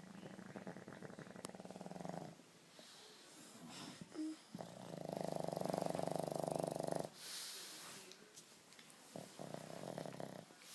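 A pug snoring: three long snores, the loudest about five seconds in and a fainter one near the end, with airy breaths between them.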